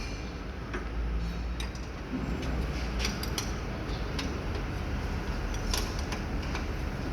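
Scattered sharp metallic clicks of a wrench working the bolts of a new air distributor valve on a truck as it is tightened, a few irregular clicks a second or less, over a steady low rumble.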